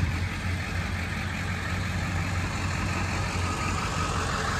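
A vehicle engine idling steadily: a constant low hum with a noisy background.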